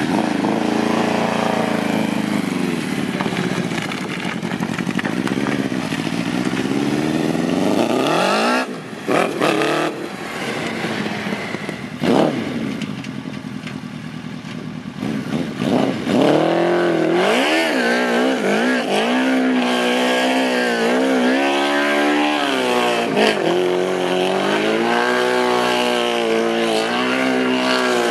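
1000cc motorcycle engine in a go-kart revving hard, its pitch climbing and dropping as it accelerates, with a couple of sudden drops. From a little past halfway the revs swing up and down rapidly while the rear tyres spin and smoke in a burnout.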